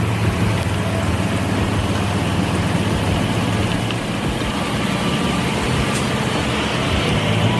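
A heavy vehicle's engine running steadily, a low hum.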